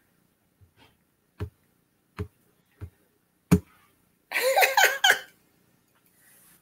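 A row of five sharp clicks, about one every three-quarters of a second, then a second-long burst of a person's voice about two-thirds of the way through.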